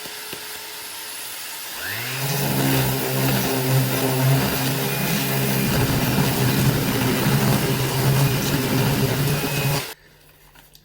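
Electric power sander on a wooden parquetry tabletop with 240-grit paper: a steady hiss starts first, then the motor spins up about two seconds in and runs with a steady hum. It stops abruptly near the end.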